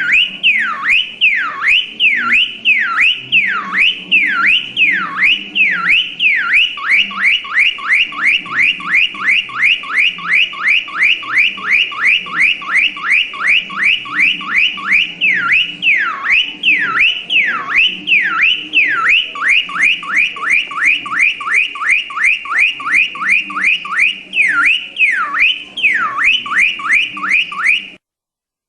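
Car alarm siren: a falling whoop repeated about one and a half times a second, switching to a faster run of quick falling sweeps and back again in cycles, then cutting off suddenly near the end.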